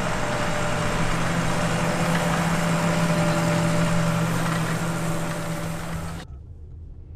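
An engine running steadily with a constant hum, cutting off abruptly about six seconds in and leaving a faint low rumble.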